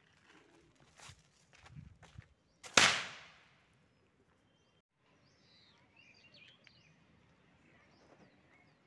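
A homemade paper triangle cracker packed with matchstick heads goes off with one sharp, loud bang about three seconds in, after a few soft crackles as it burns.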